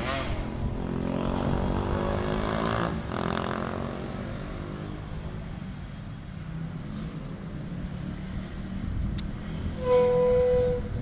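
A large tour bus's engine rumbling as it passes and pulls away, its note rising over the first few seconds. About ten seconds in, a loud 'telolet' musical bus horn sounds a steady note.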